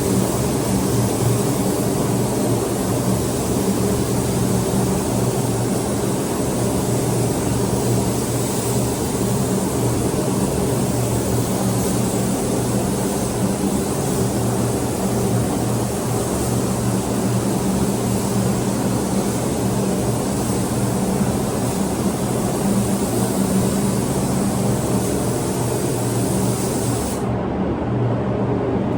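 Steady machine hum with a continuous hiss on top, the kind of noise shop air and painting equipment makes. The hiss drops out briefly near the end while the hum carries on.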